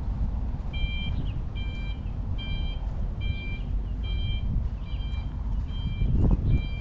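Electronic beeping at one steady pitch, repeating evenly a little more than once a second, over a low rumble that grows louder near the end.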